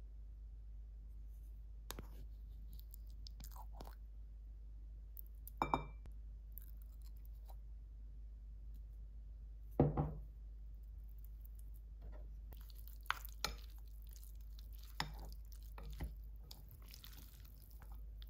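Wooden spoon scooping basil pesto out of a glass jar and onto spaghetti in a ceramic bowl. There are a few soft knocks and a short clink about six seconds in, and a louder knock near ten seconds. In the last few seconds the wooden spoons scrape and toss the pasta. A steady low hum runs underneath.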